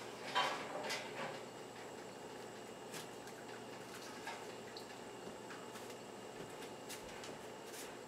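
Faint handling sounds of glass canning jars being lifted out of a water-bath canner with a jar lifter, with a few light clicks scattered through.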